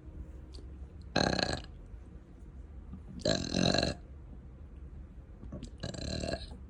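A person burping three times, about two seconds apart; the middle burp is the longest and the last one the quietest.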